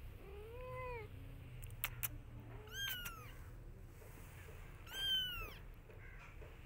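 Persian cat and kitten meowing: a lower, arching meow about half a second in, then two high-pitched, downward-falling kitten mews at about three and five seconds, the second the loudest. Two short clicks come just before two seconds.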